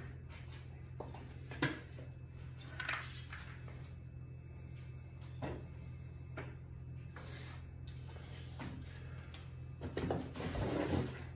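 Packing being handled in a wooden shipping crate: scattered short knocks and rustles as foam pieces and wrapped parts are lifted out and set down, with a longer, louder rustling scrape near the end. A steady low hum runs underneath.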